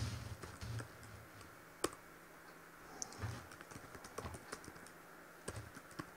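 Typing on a computer keyboard: sharp key clicks in short irregular runs with pauses between them, mixed with a few duller thumps.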